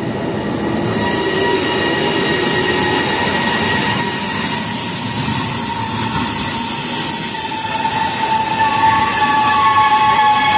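Freight train of hopper wagons hauled by an E494 electric locomotive rolling past at close range, with a steady rumble and a high squealing from the wheels that grows stronger near the end.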